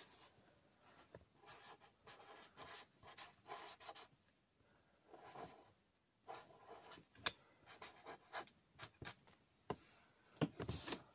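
Felt-tip marker pen scratching across paper in short strokes as letters are written, with a couple of sharper clicks near the end.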